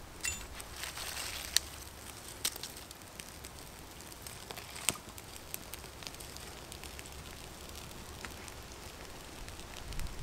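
A small campfire of birch bark curls and wood shavings crackling as it catches, with scattered small ticks and a few sharp pops in the first half. Thin twigs are laid on the flames.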